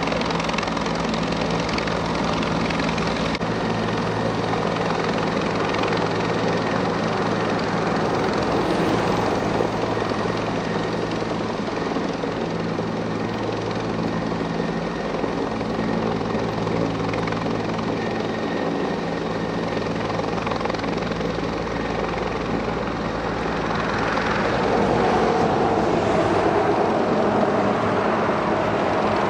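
Helicopter running steadily overhead while it lifts a rescue litter on its hoist cable, a little louder near the end.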